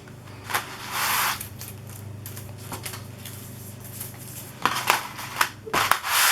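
Thin plastic stencil sheets being handled and shuffled: a rustling swish about a second in, then a run of light clicks and clacks near the end.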